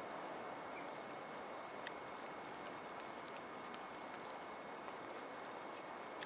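Faint, steady background hiss with a few faint scattered clicks.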